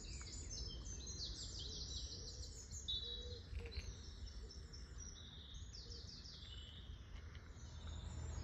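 Woodland birdsong: several songbirds singing, with short chirps and trills overlapping one another, over a steady low rumble.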